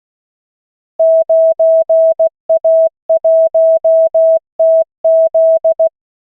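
Morse code tone from LCWO.net callsign practice at 16 words per minute: a single steady pitch keyed into short and long elements spelling out a callsign, starting about a second in and stopping just before the end.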